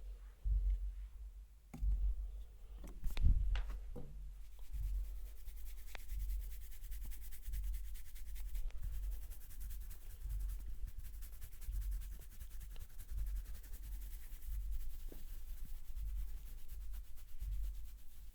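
Hands rubbing a person's scalp and hair close to the microphone: a steady scratchy rustle with irregular soft low thumps, and a few sharper clicks and knocks about two to four seconds in.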